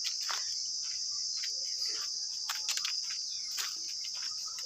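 Steady high-pitched chirring of insects, with a few short clicks over it.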